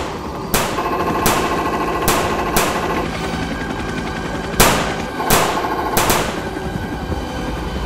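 Machine-gun fire sound effect for a scale model armored troop carrier's gun turret: a fast, steady rattle of rounds with louder, sharper shots cracking out about once a second.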